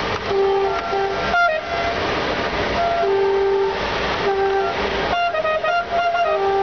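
Locomotive horns sounding in a string of short and longer blasts at a few different pitches, over the steady rumble of the train running on the rails.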